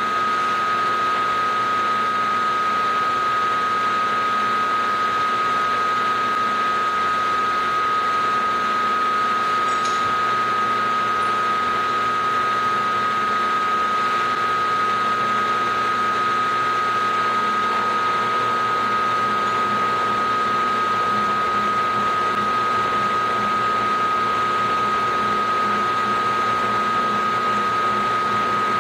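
Milling machine running a 7/8-inch roughing end mill, cutting the end of an aluminum block: a steady whine with one strong high tone over the cutting noise.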